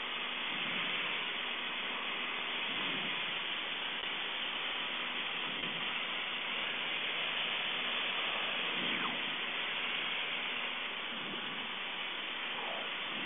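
Cessna 152's four-cylinder engine and propeller running steadily in flight, heard as a continuous hiss-like drone mixed with airflow noise.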